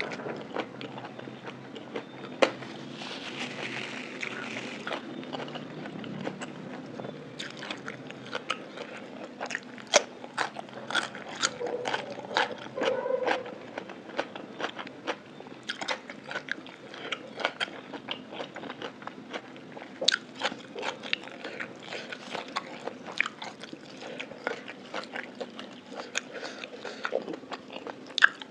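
Close-miked eating sounds: wet chewing and crunching of a mouthful of spicy lime salad with raw shrimp, with frequent sharp mouth clicks.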